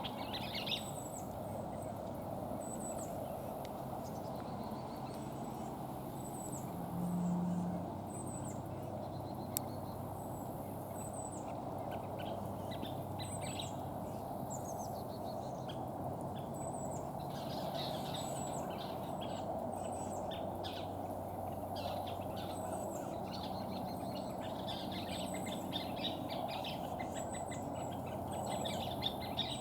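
Scissor-tailed flycatchers calling over and over in short sharp high notes and bouts of chattering, which the uploader takes for alarm at a nearby American kestrel. A steady low background rumble runs underneath, with a brief low hum about seven seconds in.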